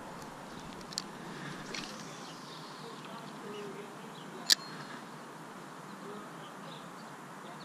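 Steady outdoor background with faint bird calls, broken by a light click about a second in and a sharp, much louder click about four and a half seconds in.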